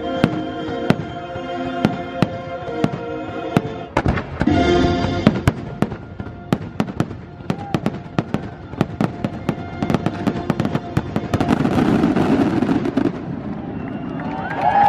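Fireworks bursting in rapid sharp bangs over a fireworks show's music. The music's held chords fade after about five seconds, and the bangs and crackling carry on more densely.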